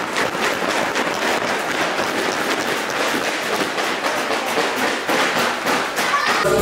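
A crowd applauding steadily with many hands clapping.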